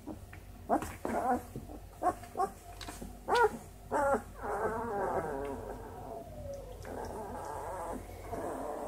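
Twelve-day-old Great Dane puppies squeaking and whimpering: short separate squeaks through the first few seconds, then longer, wavering whines from about four seconds in.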